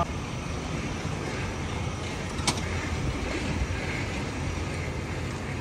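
Steady city street ambience: a low, even hum of road traffic, with one sharp click about two and a half seconds in.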